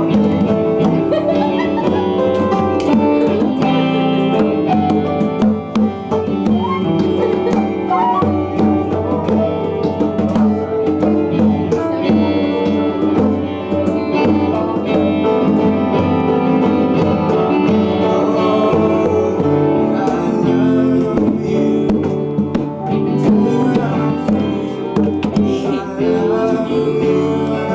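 Live jam-session music with an upright piano being played, alongside other instruments and hand percussion.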